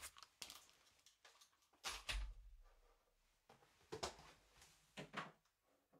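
A few faint knocks and bumps of someone moving and handling gear close to the microphone, spaced out over several seconds, the loudest a dull thump about two seconds in.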